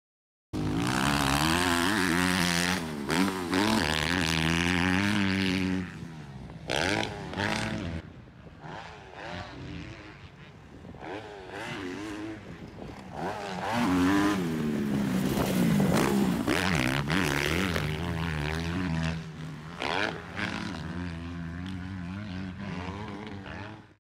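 Kawasaki KX250F single-cylinder four-stroke motocross bike being ridden on a dirt track, its engine revving up and down as it goes through jumps and corners. It runs loud at first, fades back for several seconds in the middle, comes up loud again, then drops away near the end.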